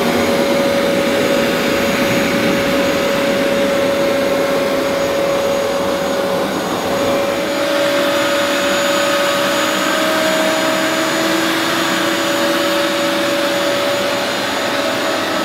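Vax Rapid Power Plus carpet washer running as it washes a carpet: a loud, steady suction-motor whine whose pitch shifts slightly about halfway through.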